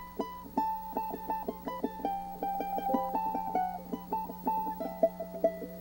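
Charango played solo: a quick run of bright plucked notes, several a second, over a steady low hum.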